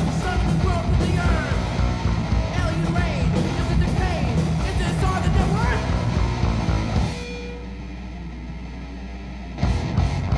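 Thrash metal band on a 1988 demo recording, with distorted electric guitars, bass and drums playing together. About seven seconds in the band drops out, leaving a low held note for a couple of seconds, then the full band crashes back in near the end.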